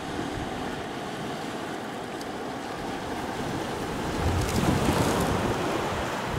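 Small ocean waves breaking and washing on a rocky, pebbly shore, with wind blowing on the microphone. The sound swells louder about four seconds in, then eases.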